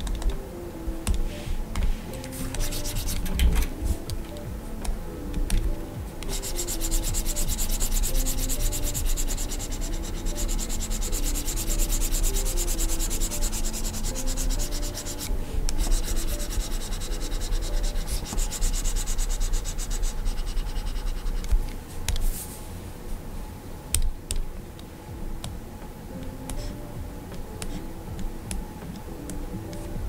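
Stylus nib scratching and rubbing across the screen of a Gaomon PD2200 pen display in quick sketching strokes. It makes a continuous scratchy hiss through the middle, then gives way to scattered light taps and short strokes near the end.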